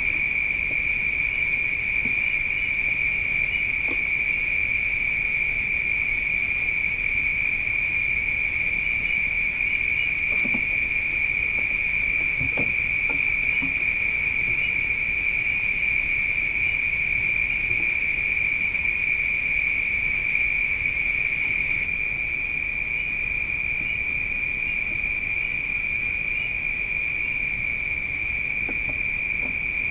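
Crickets chirping in a steady, unbroken high-pitched chorus, a little quieter from about two-thirds of the way in, with a few faint knocks around the middle.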